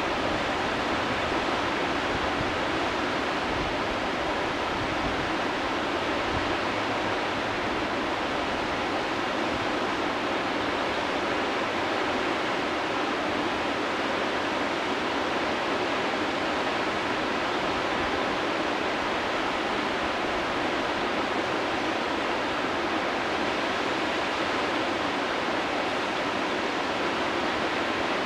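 Whitewater rapids of a river wave rushing steadily, an unbroken roar of breaking water.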